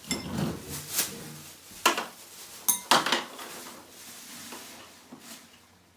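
Handling clatter of kitchenware: a few sharp knocks and clinks, one about two seconds in and a close pair about three seconds in, over soft rustling.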